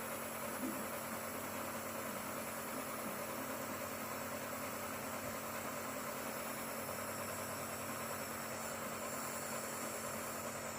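Nebulizer compressor running with a steady, unchanging hum.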